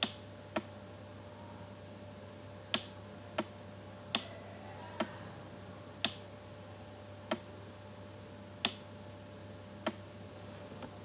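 Computer mouse clicking: about ten sharp single clicks at uneven intervals, over a faint steady hum.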